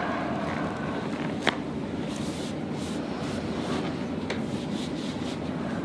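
A single sharp crack about a second and a half in, typical of a joint cavitating under a chiropractic thrust, followed by soft rubbing noises and a fainter click later on.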